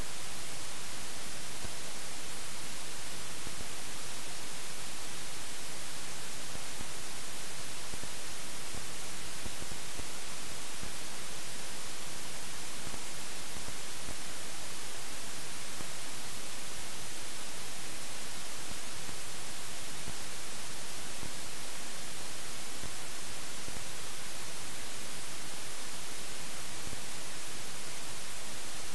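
Steady static hiss with no other sound, even and unchanging and strongest in the high end: the noise of a failed camera audio track.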